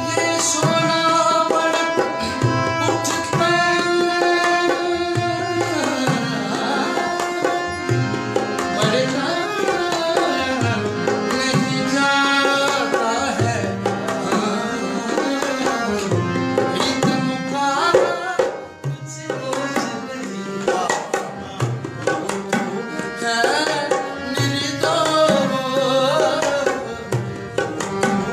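Live raag-based singing accompanied by harmonium and tabla: held harmonium notes under a gliding, ornamented voice, with tabla strokes keeping the rhythm.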